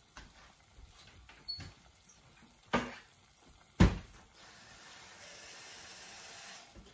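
Kitchen clatter: a few light clicks and two sharp knocks about a second apart, the second the loudest, then water running in a steady hiss for about two seconds as a cup of water is got ready for the pot.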